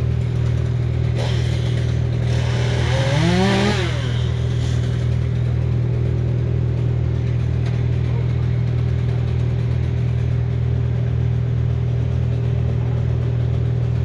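An engine idling steadily, with a chainsaw revving up briefly about three seconds in.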